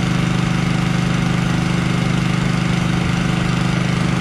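Small gasoline engine on a chemical transfer pump running steadily at a constant speed, with a fast, even pulse.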